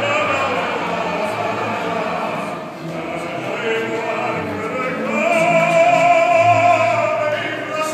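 Male opera singer singing in full operatic voice with vibrato, ending on a long held note that swells to its loudest about five seconds in.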